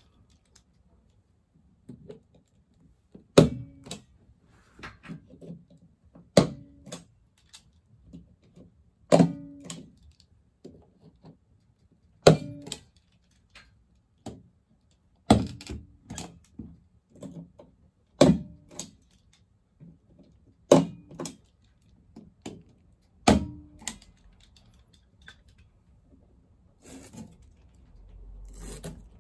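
Mini stapler, opened flat, driving #10 staples through 3D-printed plastic mounts into a plasterboard wall: eight loud, sharp snaps about three seconds apart, each with a short ring and a lighter click just after. Near the end, softer rattling as a wire mesh panel is handled against the mounts.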